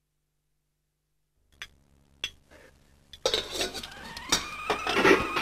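Pots, pans and cutlery clinking and clanking: a few single clinks starting about a second and a half in, then a dense clatter from about three seconds in, with a tone slowly rising in pitch over it.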